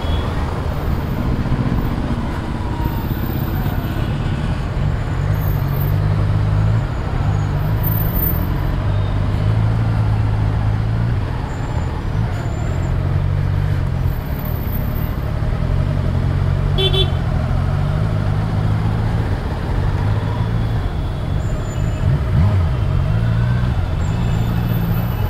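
Motorcycle engine running at low, varying speed while riding slowly through dense city traffic, with the surrounding traffic noise. A short horn toot sounds about two-thirds of the way through.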